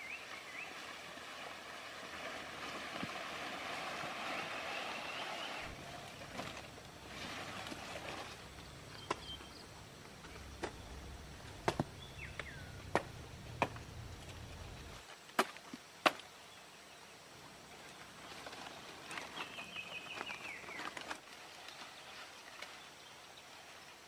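Faint rustling of leaves and branches being handled, with scattered sharp snaps and clicks, and a few short high calls.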